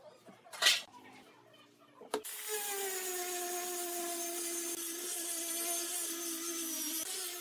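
A sharp knock of wood on the workbench, then about two seconds in an angle grinder with a sanding disc starts and runs at a steady pitch, sanding the faces of pine boards.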